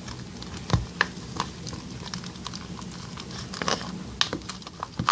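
Clay slime, a mix of iClay and soap, being stirred in a container as it clumps: irregular sticky clicks and crackles, one louder click about a second in.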